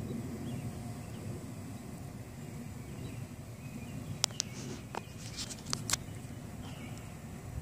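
Outdoor ambience: a steady low rumble, with a handful of sharp clicks bunched about four to six seconds in.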